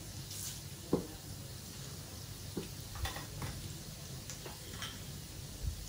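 Tadka oil sizzling steadily in a frying pan with chana dal, urad dal, cumin and mustard seeds frying in it. A few sharp clicks sound through it.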